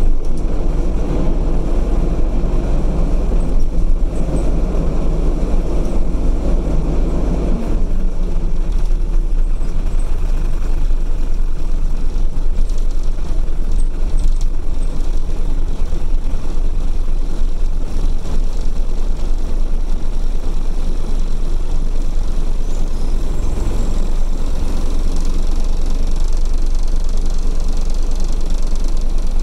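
MAN diesel engine of an Optare Solo midibus running on the move, heard inside the cabin from the rear seats. The engine is louder and more droning for the first seven or so seconds, then drops back to steadier running with road noise for the rest.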